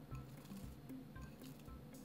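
Soft background music over faint wet squishing and crackling clicks of slime being squeezed and folded by hand in a bowl.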